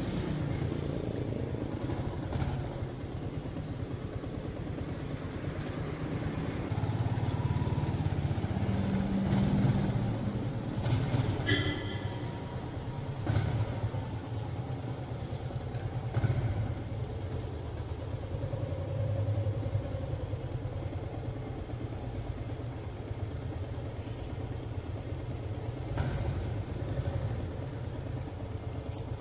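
Yamaha Sniper 150's single-cylinder four-stroke engine running at low speed, rising and falling a little, with a short high beep about eleven seconds in.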